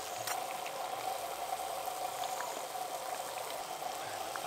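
Besan-battered potato fritters (aloo chop) deep-frying in hot oil in a metal wok: a steady bubbling sizzle with a few faint ticks.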